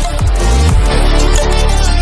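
Loud electronic dance music with heavy bass drops and a steady beat.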